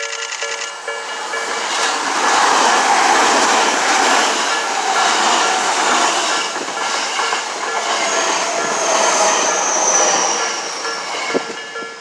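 Japanese level-crossing warning bell ringing about twice a second as a Tobu Tojo Line electric commuter train passes over the crossing, its wheels clicking over the rail joints. A thin high tone slides slowly down late in the pass, then the bell rings on as the train clears.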